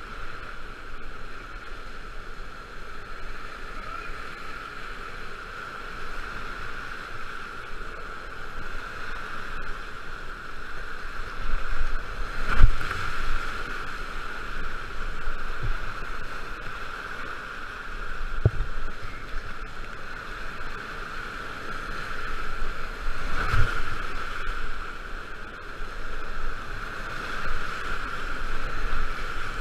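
Whitewater rapids rushing steadily around a kayak, with a few dull knocks and splashes against the boat, the two loudest about halfway through and again about two-thirds through.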